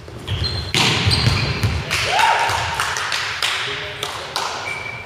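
Volleyball rally in a large, echoing sports hall: about four sharp hits of the ball, each ringing on in the hall, with short high shoe squeaks on the wooden court between them.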